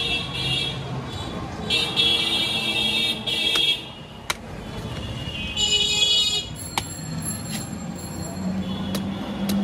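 Vehicle horns honking in street traffic: a short blast near the start, a longer one about two seconds in, and another about six seconds in, over steady traffic noise. A few sharp clicks sound in between.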